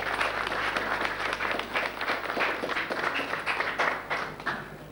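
Small audience applauding, many hands clapping at once, dying away near the end.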